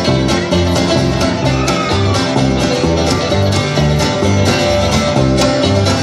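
Live acoustic string band playing an instrumental break: banjo picking and strummed acoustic guitar over plucked upright bass notes.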